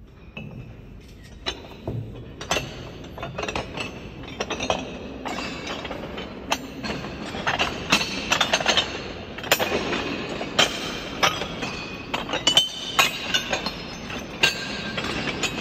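Footsteps on a floor of loose, heavy iron face-plates: the metal faces clank and clink against each other underfoot with a short metallic ring. The clanks are irregular, growing louder and more frequent after the first couple of seconds.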